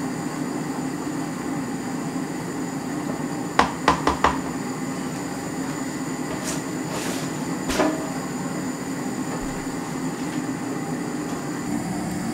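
Steady low hum of kitchen equipment running, with three quick knocks about three and a half seconds in and a single knock near eight seconds.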